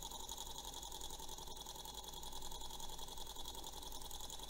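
Small model Stirling engine running steadily on the heat of its spirit-burner flame, its flywheel and linkage making a fast, even mechanical patter.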